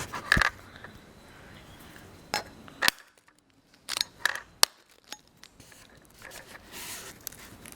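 Eggs being cracked on the edge of a mixing bowl and their shells pulled apart: a scattering of sharp taps and clicks, the loudest a little under five seconds in, between quieter handling and scraping sounds.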